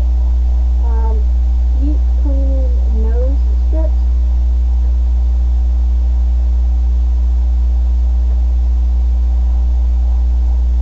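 Loud steady low electrical mains hum, with a woman's voice heard faintly and briefly in the first few seconds.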